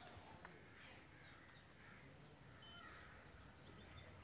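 Near silence: faint outdoor background with crows cawing in the distance.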